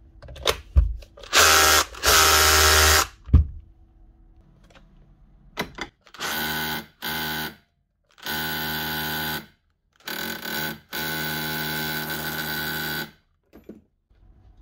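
Makita DHR242 cordless SDS-plus rotary hammer test-run in a series of short trigger pulls of one to three seconds each, at a steady pitch, with a couple of handling knocks between. The hammer action is working properly.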